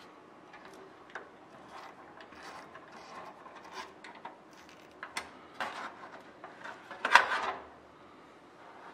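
C-clamps being hand-tightened and adjusted on aluminum aircraft parts: scattered small metal clicks, scrapes and taps, with one louder clatter about seven seconds in.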